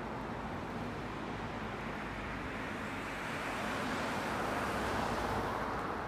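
Road traffic noise, with a car passing on the road and swelling to its loudest about five seconds in.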